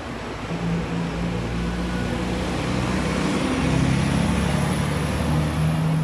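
City road traffic, with a large vehicle's engine running close by as a steady low hum that grows louder about halfway through.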